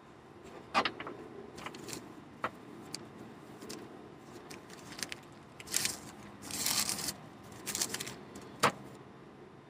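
Thin Bible pages being flipped and rustled: a string of crisp page flicks about a second apart, with a longer rustle about two-thirds of the way through.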